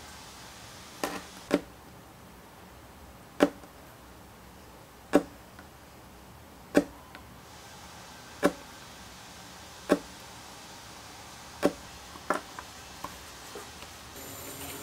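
Knife blade pressed down through thin vegetable-tanned leather onto a cutting mat, giving a sharp chop about every second and a half, nine times in all.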